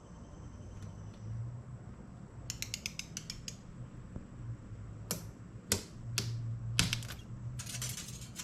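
Metal clicking from a band-clamp tool tightening a clamp band on a CV boot: a quick run of about ten light ratchet-like clicks, then several sharper clicks spaced about half a second apart.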